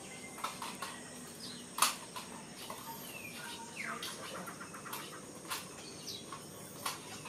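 Natural ambience of birds calling, short chirps and falling whistles, over a steady high insect whine, with several sharp clicks, the loudest a little under two seconds in.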